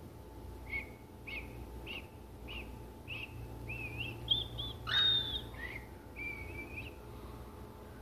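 Small pet parrots chirping and whistling in a cage. First comes a string of short chirps a little over half a second apart, then quick rising warbled notes, a louder whistle about five seconds in, and a held whistled note near the end.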